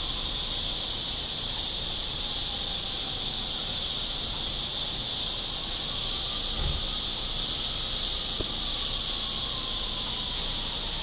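Steady insect chorus: a continuous, high-pitched drone that holds level without a break.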